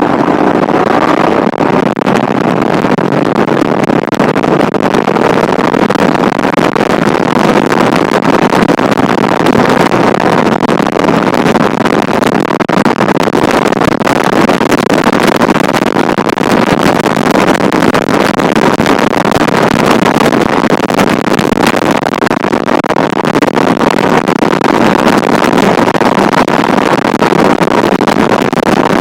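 Loud, steady rushing of wind on the microphone.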